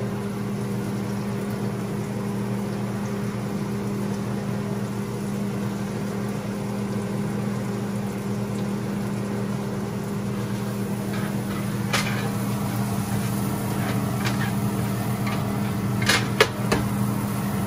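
A steady low electrical hum from a kitchen appliance motor runs throughout. In the last few seconds a wooden spatula clicks and scrapes against a nonstick grill pan as the garlic and onion in it are stirred.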